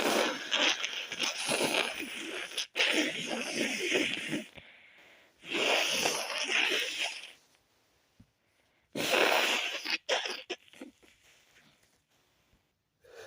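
A person stifling sneezes from a very tickly nose: several breathy, muffled sneeze bouts in a row, each lasting one to three seconds, with short pauses between them.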